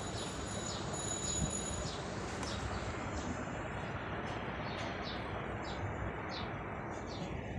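A steady rushing background noise with small birds chirping over it, short high falling chirps repeating about every half second.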